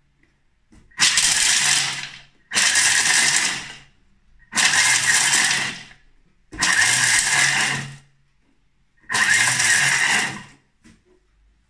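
Thermomix running five short turbo pulses, its blade chopping almonds in the steel mixing bowl; each burst lasts about a second and a half, with brief gaps between them.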